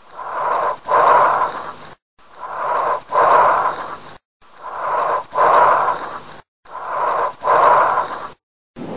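Recorded lung breath sounds, as heard through a stethoscope: four breaths, each a rising inhale and a louder exhale with a short pause between them, and a steady high tone running through both.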